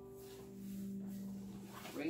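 Twelve-string acoustic guitar ringing out softly as its last chord fades, then a single low note sounding about half a second in and holding while the strings are touched and the guitar is moved.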